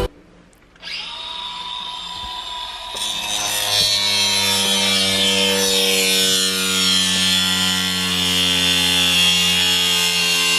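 Electric angle grinder with a cut-off wheel starting up about a second in and running with a steady high whine; about three seconds in it grows louder and harsher as the wheel bites into the work, and it keeps running.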